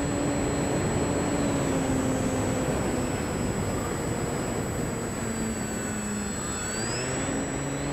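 An electric RC aerobatic plane's motor and propeller running in flight, over a steady rush of air. The hum's pitch sags slowly as the throttle comes back and climbs again near the end.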